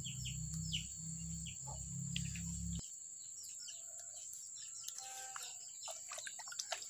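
Insects droning in one steady high tone, with scattered short bird chirps. A low rumble underneath cuts off abruptly about three seconds in.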